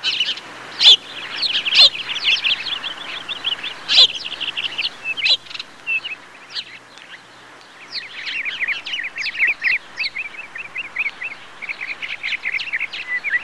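Birds chirping and twittering, many short quick calls overlapping, with a few louder chirps in the first few seconds.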